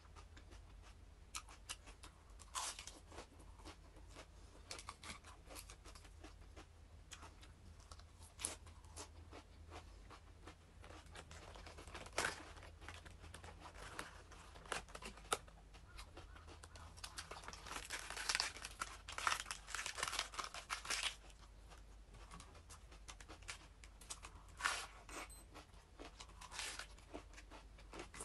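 Raw iceberg lettuce crunching and tearing: crisp leaves chewed close to the microphone and torn off the head by hand, in irregular sharp crackles that grow densest and loudest about two-thirds of the way through.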